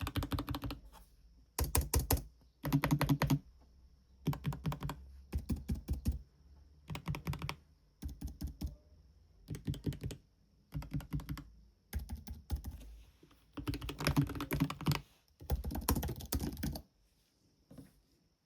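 Typing on a computer keyboard in short bursts of quick keystrokes, each burst about a second long with brief pauses between. The typing stops shortly before the end.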